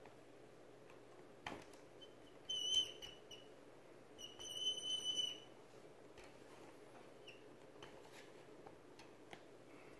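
Cleaning rod with a bore mop being pushed into a .22 air rifle's barrel at the muzzle: a click, then two short high-pitched squeaks as the rod and mop slide through the bore, followed by a few faint ticks.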